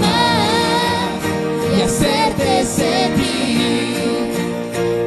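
Music: a song with a singing voice over instrumental accompaniment, taken straight from the mixing console.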